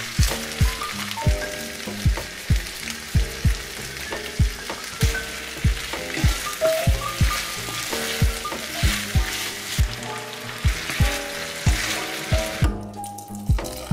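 Onion, potato and carrot sizzling in oil in an enamelled cast-iron pot while being stirred with a wooden spoon. The sizzle cuts off suddenly near the end. Under it runs background music with a steady kick-drum beat.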